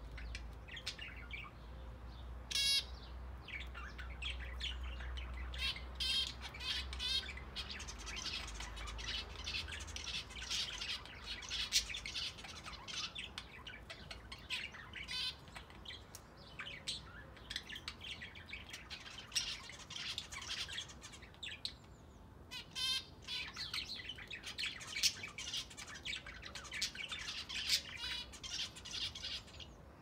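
Mixed flock of budgerigars and zebra finches chirping and chattering, a dense run of short, warbling calls throughout, with a low hum underneath for the first third.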